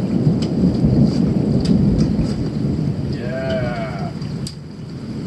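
Thunder rumbling low through steady rain, with sharp drop-like ticks; the rumble is heaviest in the first three seconds and eases about four and a half seconds in. About three seconds in, a short call rises and falls over it.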